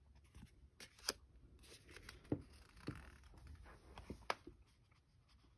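Linen-finish tarot cards being handled: a card slid off the front of the deck and moved behind, with a soft scraping rustle and several sharp taps and clicks of card edges.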